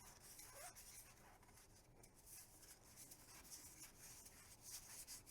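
Faint papery rustling and sliding of tarot cards being leafed through by hand, with soft ticks as cards are moved one past another.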